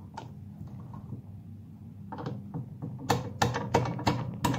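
Metal bench vise being worked on a shotgun cartridge: quiet handling for the first few seconds, then a run of sharp metallic clicks and knocks, about three a second, from about three seconds in.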